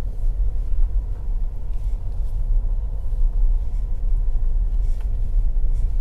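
Ford EcoSport on the move: a steady low rumble of engine and road noise.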